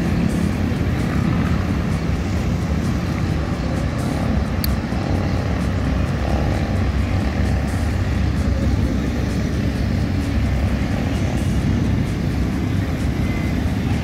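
Pakistan Railways AGE30 diesel-electric locomotive approaching, its engine a steady low drone.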